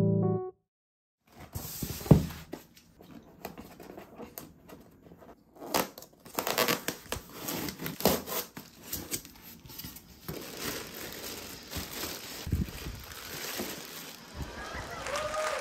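Crinkling and rustling of something being handled, with scattered small taps and a sharp knock about two seconds in.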